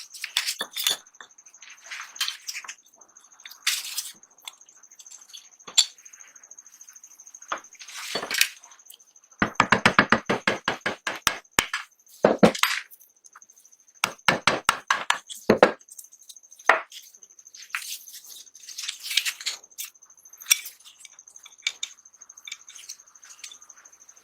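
Small metal parts of a 1911 pistol clicking and clinking as they are handled and worked, in separate sharp knocks, with a quick run of about ten clicks a second near the middle. A faint steady high whine sits underneath.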